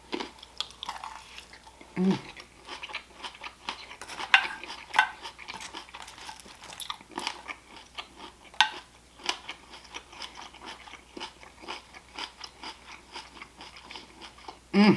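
A person chewing and crunching food at close range, with many small irregular wet mouth clicks. There is a short hum about two seconds in.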